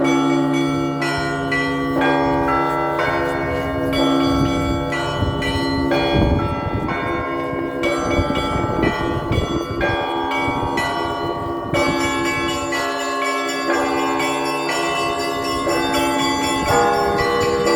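Russian Orthodox church bells ringing together: small bells struck rapidly, several times a second, over the sustained hum of larger, deeper bells.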